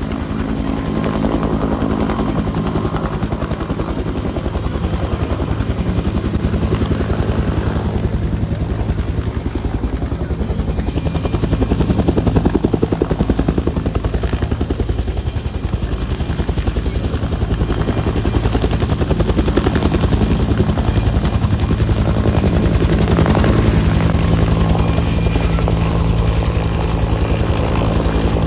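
UH-1 Huey helicopter running, its two-bladed main rotor beating in a rapid, even pulse over the steady drone of its turbine engine.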